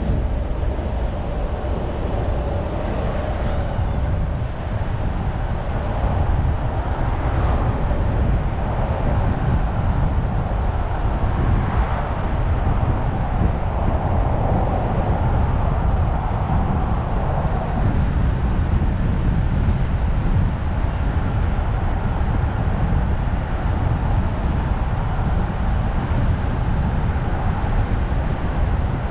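Car driving along: a steady low rumble of engine and road noise with tyre hiss.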